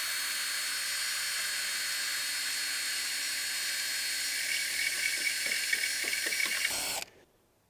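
Hand-held power drill spinning an 8 mm bit through a carbon-fibre hydrofoil mast with only light pressure: a steady high whir and hiss that cuts off suddenly near the end.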